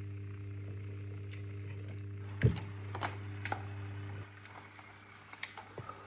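Philips N2408 cassette changer mechanism at the end of a tape: a steady motor hum, with a few sharp clicks and clunks from the mechanism a little after halfway. The motor stops about four seconds in, followed by a couple of lighter clicks.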